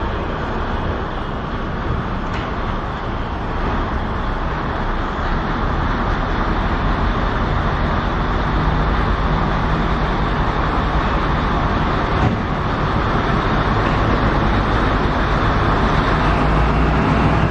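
Kominato Railway KiHa 200-series diesel railcar pulling away from the platform, its diesel engine growling and growing louder as it accelerates.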